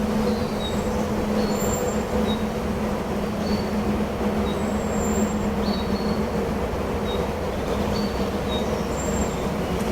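Forest ambience: a steady rush of wind over a low, even hum, with short high bird chirps about once a second.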